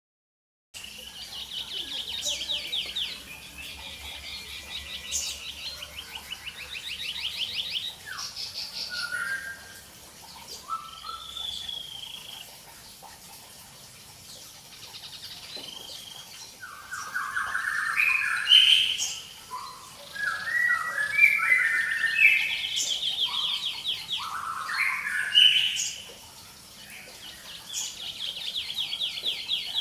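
White-chested babbler (tepus dada putih) singing: fast, high rattling trills alternate with runs of short clear notes that slide up and down, the notes loudest and most crowded in the second half.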